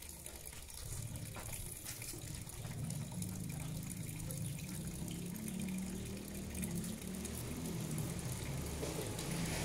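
A steady hiss, with a low motor hum that starts about a second in and grows louder as it runs on.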